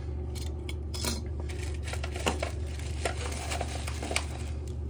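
Scattered light clicks, taps and rustling from hands on the boxed e-bike and its foam and paper packing, over a steady low hum.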